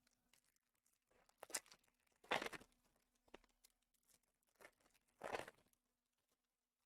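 A few brief crinkles and tears of foil trading-card pack wrappers from Panini Prizm Fast Break boxes, the loudest about two seconds in and another near the end, with near silence between.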